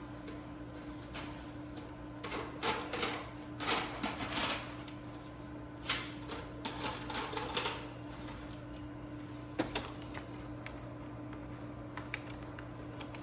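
Irregular plastic clicks, taps and rustling from hands working on the open Epson L1800 inkjet printer's ink dampers, busiest in the first half, with a couple of sharp clicks later, over a steady low hum.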